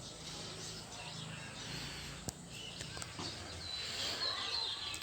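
Outdoor ambience with a faint low murmur, a single sharp click about two seconds in, and a bird's high, repeated chirps starting near the end.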